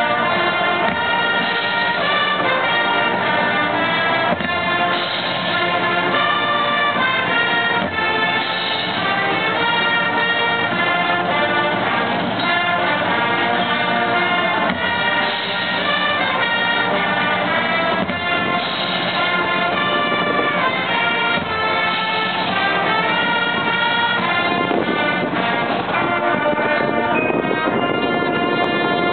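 Large combined marching band, high school and middle school players together, playing a steady tune with the brass section to the fore.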